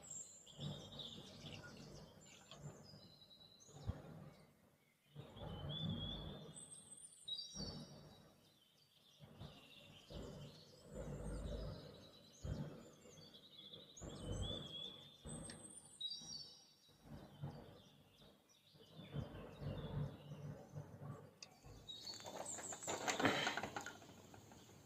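Faint birdsong: short chirping phrases that recur every few seconds. Under it are scattered soft rustles and a few light knocks.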